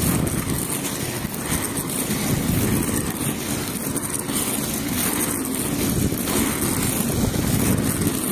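Wind buffeting the microphone of a camera moving along a road: a steady low rumble.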